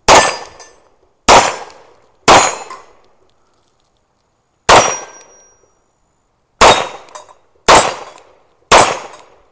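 Seven pistol shots from a Springfield Armory pistol with a 1911-style trigger, about a second apart with a longer pause in the middle. Each shot is followed by the clang and brief ring of a steel target being hit.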